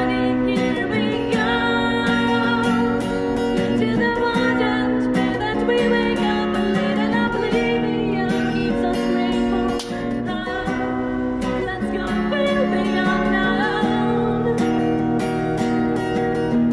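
Acoustic guitar strummed in a steady rhythm while a woman sings along, her voice amplified through a small portable busking amp.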